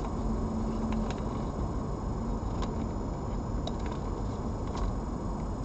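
Steady low background rumble and hiss with a faint hum that comes and goes, and a few faint short ticks.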